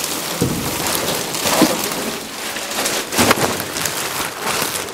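Large plastic trash bag rustling and crinkling loudly as it is dragged and handled, with a couple of stronger crackling surges.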